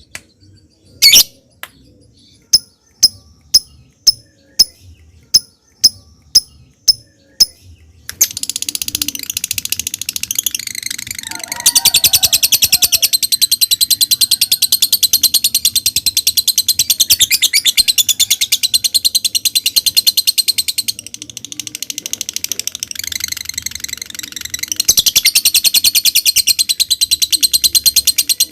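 Lovebird giving sharp single ticking calls (ngetik), about two a second, then about eight seconds in breaking into a long, rapid, high chattering trill (ngekek) that eases briefly and comes back loud near the end.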